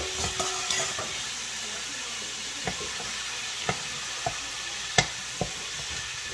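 Beef and vegetables sizzling steadily in a wok as they are stir-fried with two wooden spatulas, with scattered clacks of the spatulas against the pan; the loudest knock comes about five seconds in.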